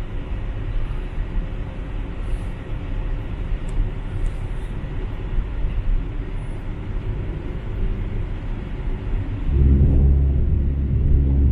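Road and engine noise heard inside a moving car's cabin: a steady low rumble that swells into a louder, deeper hum for the last two seconds or so.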